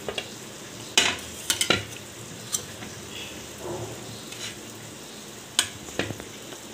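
Steel spoon clinking and scraping against a stainless steel bowl as syrup-soaked samosas are lifted out: sharp clinks at uneven intervals, a cluster about a second and a half in and more near the end, over a steady faint hiss.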